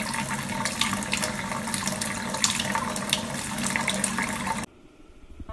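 Kitchen faucet running, a thin stream of water splashing into a stainless steel sink, with the sound cut off suddenly near the end.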